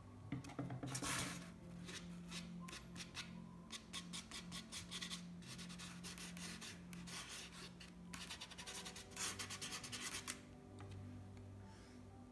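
Rapid scratchy strokes of a hand working paint across a rough painting board, coming in several runs of quick strokes, with a steady low hum underneath.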